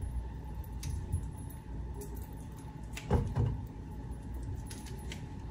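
Kitchen worktop handling sounds: light clinks and taps of a knife and utensils on a cutting board while a block of cheese is cut up, with one louder knock about three seconds in. A faint steady hum runs underneath.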